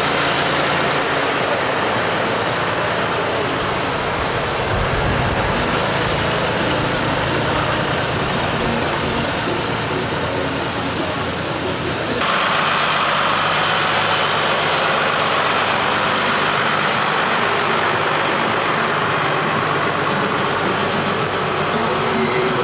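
John Deere farm tractor's diesel engine running steadily as it tows a decorated trailer past, under a dense wash of street noise. The sound shifts abruptly about halfway through.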